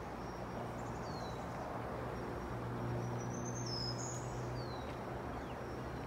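Woodland ambience: a low steady hum that swells a little in the middle, with a few faint, high songbird chirps and short downward-slurred notes scattered over it.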